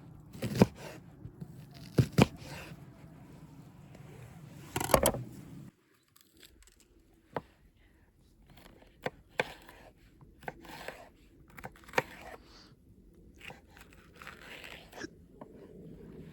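Food-preparation handling sounds: a few sharp knocks and scrapes, then a sudden drop about six seconds in, followed by fainter scattered clicks and taps.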